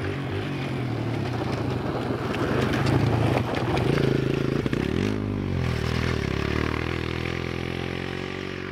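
Kawasaki KLX 140G dirt bike's single-cylinder four-stroke engine running under throttle as the bike approaches and passes close by about four seconds in, its pitch dropping as it goes past, then pulling away and fading near the end.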